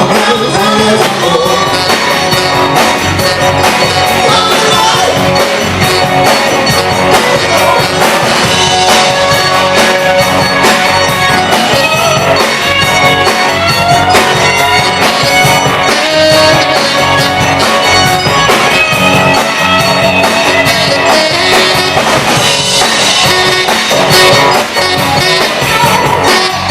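Rock-and-roll band playing live: a long instrumental stretch of drums, bass and guitar with a steady beat and no lead vocal.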